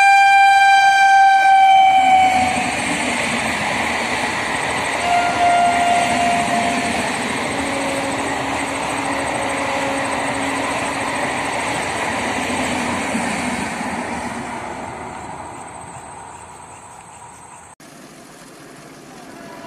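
Train horn sounding a long steady blast that stops about two seconds in, then a passing passenger train's wheels clattering over the rails with a few brief squeals, fading away. Near the end it cuts abruptly to the quieter, rising sound of a distant approaching train.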